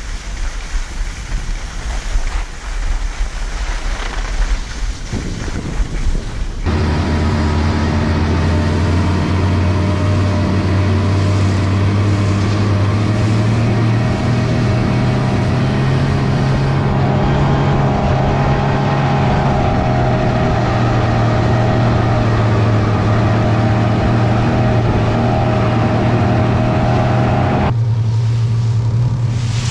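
Wind buffeting the microphone, then after a sudden cut an engine running steadily with a low hum, its pitch rising slightly partway through; near the end another cut leaves a lower hum.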